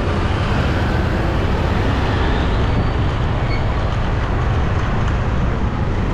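Steady street traffic noise with a heavy low rumble and no distinct events.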